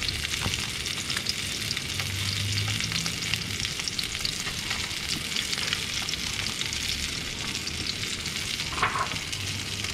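Chunks of fish shallow-frying in hot oil in a pan: a steady sizzle full of small crackles and spits, with one louder spit near the end.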